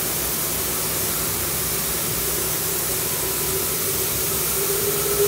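Steam locomotive venting steam from the top of its boiler: a steady, even hiss. A faint low tone creeps in near the end.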